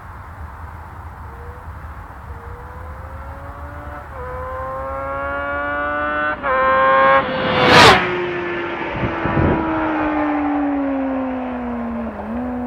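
Stock 2007 Kawasaki ZX-6R inline-four accelerating toward and past, its pitch climbing with a quick upshift about halfway through. It is loudest as it passes, then its note drops and fades as it rides away.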